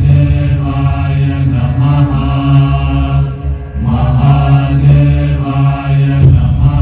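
A mantra chanted by voices over music with a steady low drone, pausing briefly about four seconds in, part of the show's soundtrack.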